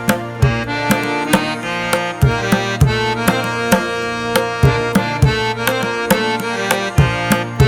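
Background instrumental music: a hand-drum beat, about two strokes a second, under sustained melodic notes.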